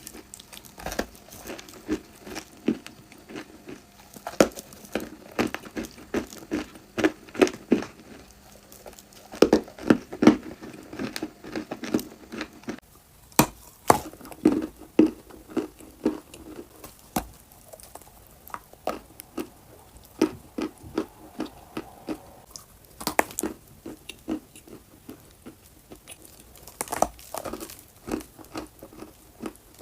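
A person biting and chewing dry clay close to the microphone: irregular crisp crunches and crackles, coming thick and fast through the first half and more sparsely later, with a few louder bites.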